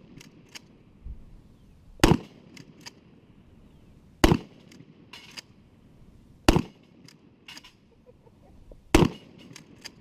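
12-gauge tactical shotgun firing four shots about two seconds apart, each followed by fainter clicks and knocks.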